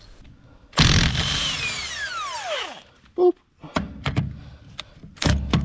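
A power tool with a socket spins a lug nut off a car wheel, its whine falling in pitch over about two seconds as the motor winds down. A few sharp clicks follow, and the tool starts again near the end.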